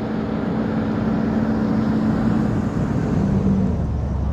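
A motor vehicle's engine running steadily, its pitch shifting about three seconds in and settling into a deeper low hum near the end.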